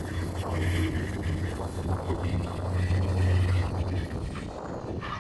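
Highway traffic passing alongside, a steady low rumble with road noise that fades about four seconds in as a vehicle goes by.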